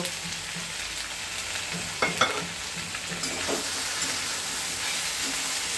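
Chopped vegetables frying in oil in a wok, a steady sizzle, as a flat metal spatula stirs them, scraping and knocking against the pan a few times in the middle.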